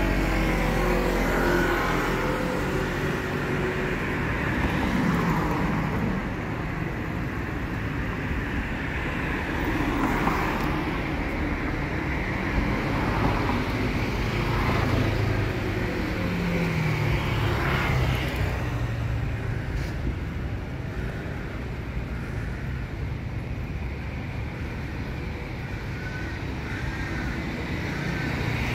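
Road traffic: motor vehicles running and passing close by over a steady low rumble, with engine notes rising and falling every few seconds.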